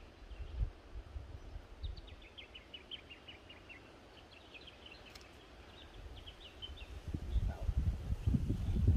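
A small bird chirping in quick runs of high notes for a few seconds, with a single sharp click partway through. Near the end, wind buffeting the microphone builds into a low rumble, the loudest sound.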